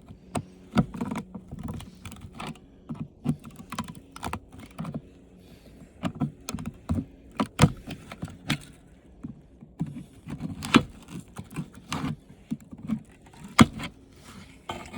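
Irregular clicks, taps and knocks of hard plastic and a screwdriver as the plastic parts of an old TV are worked and pried loose. A faint steady low hum sits underneath.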